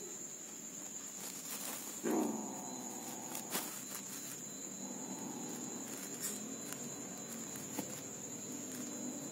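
Young Asian leopard cat growling over the prey in its mouth, with a sudden, louder growl that falls in pitch about two seconds in and lower growling later on. A steady high-pitched tone runs underneath, with a few faint clicks.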